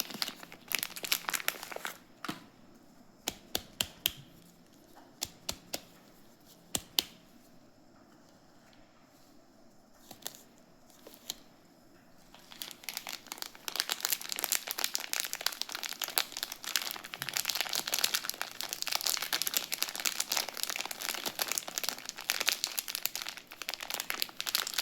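Wrapping on a handcrafted soap bar being crinkled and torn open. Dense crinkling at first, then scattered sharp clicks and taps for several seconds, then continuous crinkling again from about halfway through.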